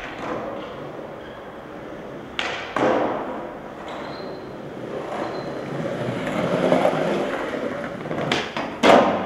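Skateboard wheels rolling over smooth tiled pavement, with two sharp clacks of the board about two and a half seconds in and two louder ones near the end.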